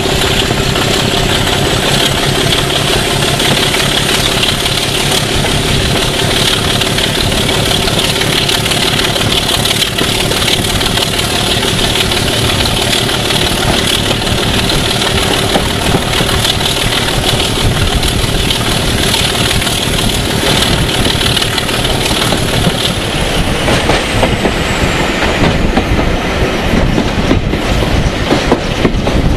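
Diesel locomotive running under power, heard from the moving train: a steady engine note with a high whine that drops away over a few seconds after about 23 seconds in. After that, wheels clicking over the rail joints come through more.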